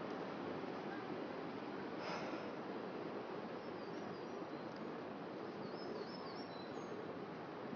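Steady outdoor background noise, with a few faint, high bird chirps about halfway through.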